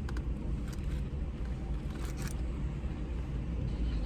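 Steady low rumble inside a parked car, with a few faint short clicks and crunches of someone eating crispy fried chicken.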